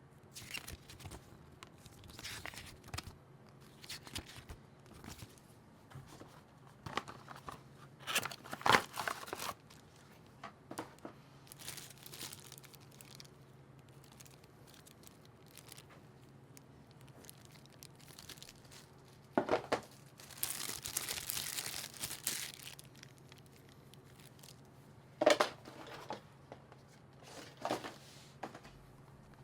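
Keyboard packaging being handled and opened: scattered rustling and crinkling with a few sharp knocks, and a longer tearing sound about two-thirds of the way through.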